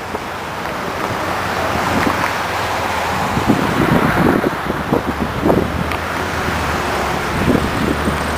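Steady rush of river water spilling over a low dam, mixed with wind buffeting the microphone in irregular gusts and road traffic on the bridge. A vehicle's low hum builds near the end.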